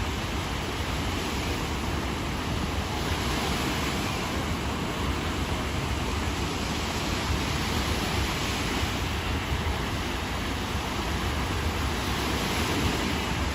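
Steady road and wind noise inside a moving car, an even rushing with a low rumble underneath.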